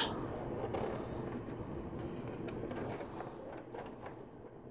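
Quiet steady low background hum, with a few faint clicks of LEGO Technic plastic parts being handled as a lift arm is fitted.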